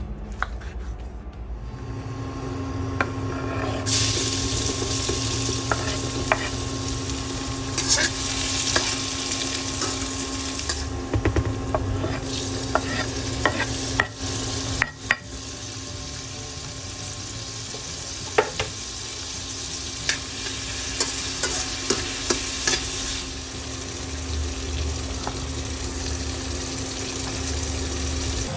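Onion, garlic and tomato sizzling as they sauté in oil in a stainless-steel wok, with a wooden spatula stirring and knocking against the pan. A steady hum from the induction cooktop runs underneath.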